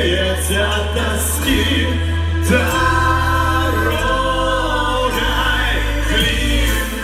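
Live Romani (Gypsy) ensemble music: several voices singing together, holding long notes over a steady bass.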